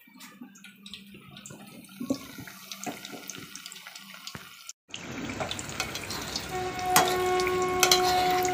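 Banana bajjis deep-frying in hot oil: a steady bubbling sizzle with crackles. It gets louder after a cut about halfway through, with clicks of a steel slotted spoon in the pan. A steady humming tone joins for a few seconds near the end.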